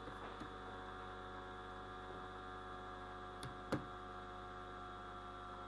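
Steady electrical mains hum with many evenly spaced tones, and two faint mouse clicks about three and a half seconds in.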